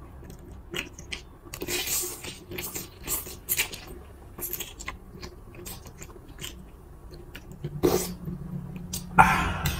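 Close-miked eating: noodles slurped from a spoon and fork in bursts, with chewing and small clicks of metal utensils against the bowl. The loudest slurp comes near the end.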